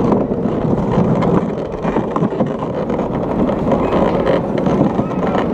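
Luge cart wheels rolling over a concrete track, a steady, rough rumble, with wind on the microphone.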